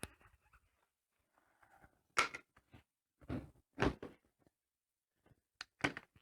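A handful of sharp knocks and clacks, about five, spread across a few seconds: hard objects handled and set down on a workbench.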